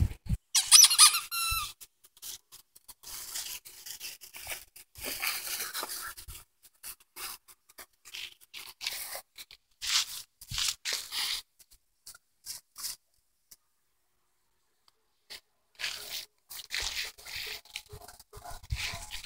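Olde English Bulldogge puppies playing: a short, high, wavering squeal about half a second in, then scattered brief scratchy noises. The noises stop for a couple of seconds past the middle and then pick up again.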